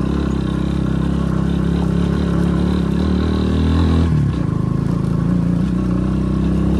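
Motorcycle engine running as the bike rides along. Its note drops about four seconds in, then holds steady again.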